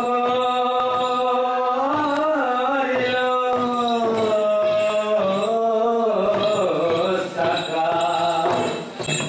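Chanted singing for a traditional folk dance: one voice holding long notes that waver slowly up and down, with a few drum beats.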